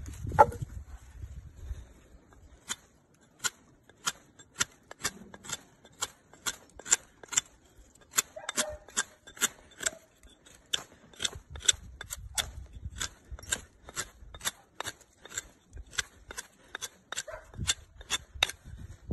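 Survival knife blade shaving a point onto a wooden stick: crisp, even cutting strokes about two and a half a second, after a knock at the start.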